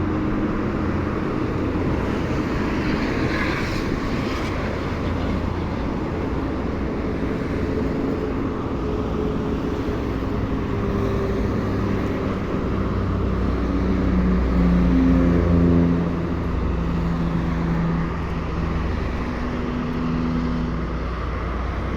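Whoosh high-speed electric train approaching and passing: a steady rushing rumble with a faint hum that swells to its loudest about two-thirds of the way through, then eases as the hum slides slightly lower in pitch.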